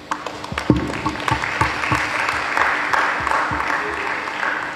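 Audience applause, starting suddenly as a dense clatter of claps with a few low thumps, and dying down near the end.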